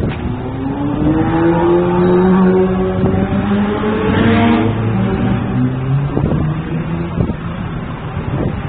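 Motor vehicle engine speeding up, its pitch climbing over the first couple of seconds, holding, then dropping lower near the middle, over steady traffic noise.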